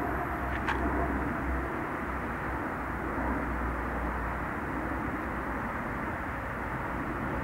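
Steady low rumble and hiss of outdoor background noise, with one short click about a second in.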